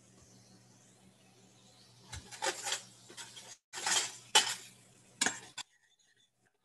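Metal utensil clinking and scraping against a steel pot as aromatics are stirred, in several short bursts over a faint steady hum. The sound cuts off abruptly near the end.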